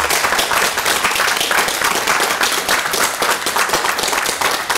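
Audience applauding: many people clapping in a loud, steady, dense patter of claps.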